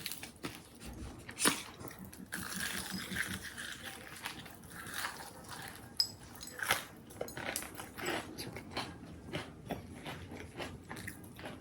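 Close-up eating sounds: biting and chewing crunchy food, with many short crackles and clicks.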